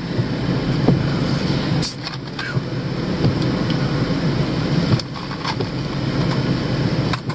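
Steady rumble inside a car's cabin during a wind and rain storm, with scattered sharp taps over it.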